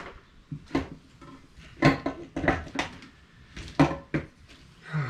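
About half a dozen sharp, irregularly spaced knocks and clatters of a Weiand valve cover and rubber valve cover gaskets being handled and set down on a hard surface.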